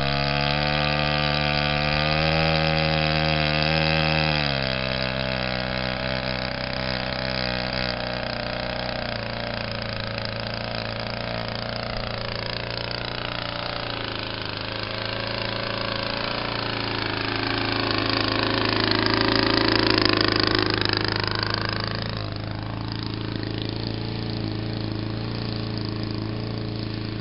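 Engine of a radio-controlled scale Zero model plane running on the ground. It holds a high throttle setting for the first four or five seconds, then is throttled back to a lower idle, with a slow rise and fall in pitch and loudness peaking about twenty seconds in.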